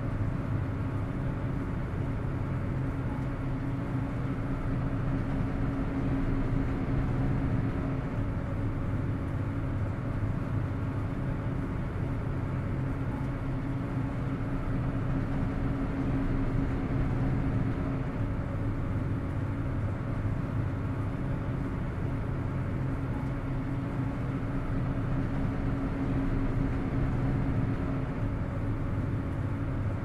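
Steady low drone of a ferry's engines, a constant hum over a rushing noise, swelling slightly now and then.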